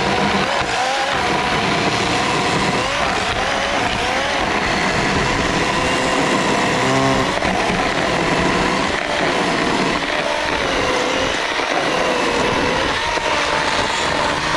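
Parkside 20 V battery chainsaw running at speed: a steady electric-motor and chain whine that dips in pitch and recovers again and again.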